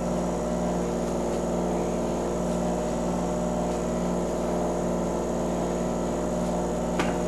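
Steady motor hum with several even tones and a faint high whine, unchanging throughout; a single light click near the end.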